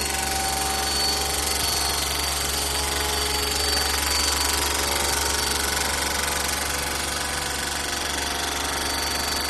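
Vacuum pump running steadily, pulling a vacuum on a 150-litre reactor vessel, with a strong low hum and a faint high whine over its noise.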